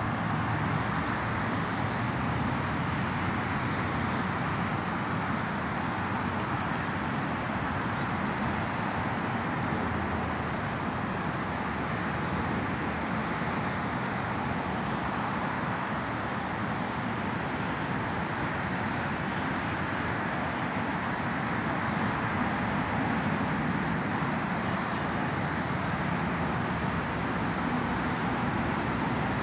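Steady road traffic noise: a continuous hum of cars on a busy city road, with no single event standing out.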